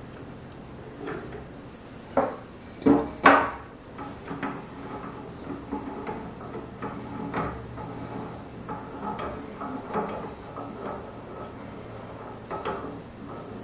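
Metal clinks and knocks as a shaper's feed nut is threaded by hand onto its lead screw and handled over a cast iron surface plate: three sharp knocks about two to three and a half seconds in, then lighter clicks.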